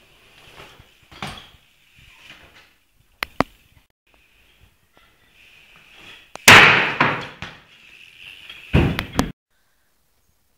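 BMX bike riding on a concrete floor: faint tyre noise with a couple of sharp clicks, then two loud impacts from the bike, about two-thirds of the way through and again near the end.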